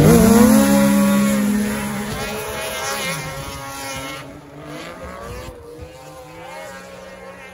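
Two racing snowmobiles launching at full throttle. The engine pitch jumps up sharply as they leave the line, then settles into a steady high-revving drone that fades as they climb away up the hill.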